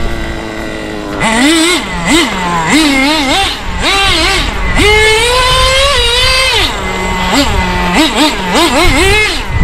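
HPI WR8's G3.0 two-stroke nitro engine, idling for about a second and then revved hard in quick throttle blips, its pitch rising and falling with each one, with one longer held run at high revs in the middle and more rapid blips near the end.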